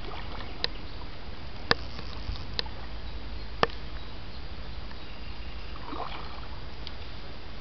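Steady outdoor background noise, with four sharp clicks over the first four seconds.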